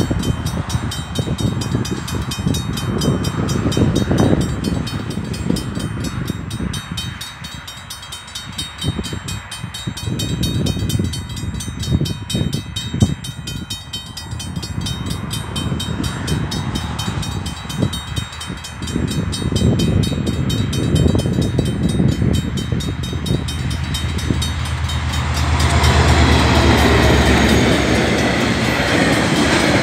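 Level crossing warning bells ringing rapidly and steadily over an uneven low rumble. About 26 seconds in, a diesel locomotive hauling a container freight train reaches the crossing, and its engine drone and the rumble of the train grow louder.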